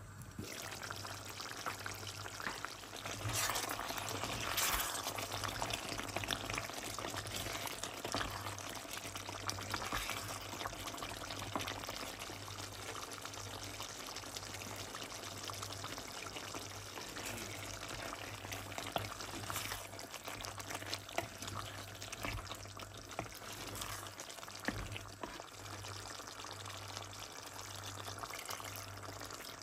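Jackfruit curry simmering in a clay pot, a steady liquid bubbling and sizzling; near the end thick coconut milk is poured in.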